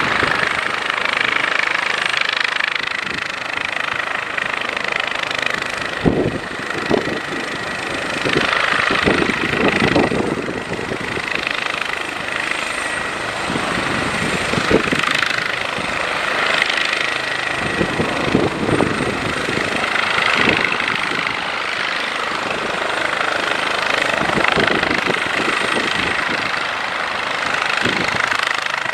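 Airbus H145 helicopter running on the ground with its main rotor turning: a steady high turbine whine with uneven low thuds. An ATR 72-500 turboprop taxiing close behind adds its propeller and engine noise.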